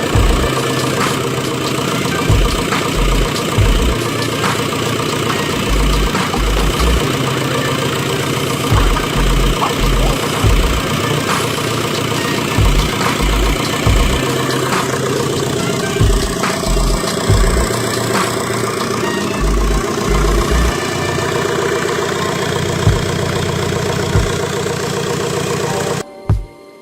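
Rebuilt VW/Audi 1.9 TDI PD (AVF) four-cylinder diesel engine running steadily at idle, the first run after the rebuild. It cuts off suddenly near the end.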